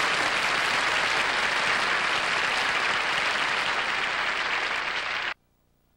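Studio audience applauding steadily. The applause cuts off suddenly near the end, leaving near silence.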